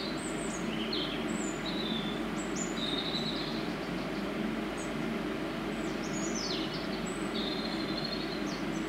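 Small birds chirping and trilling repeatedly over a steady low rumble.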